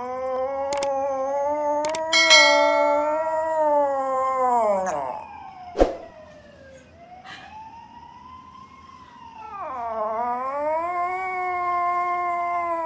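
Small poodle howling: two long, wavering howls, the first sliding down in pitch and fading about five seconds in, the second swelling up about two seconds later. A few sharp clicks come in between.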